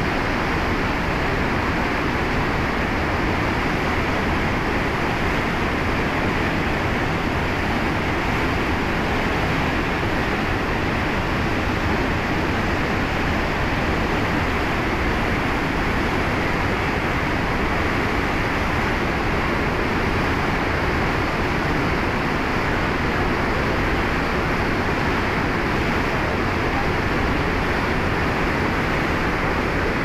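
Mountain river in spate, its high, churning water rushing over rocks and rapids in a steady, loud, unbroken rush.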